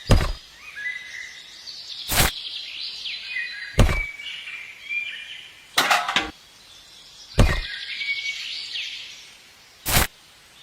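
Small birds chirping and calling, with six short, sharp knocks a second or two apart.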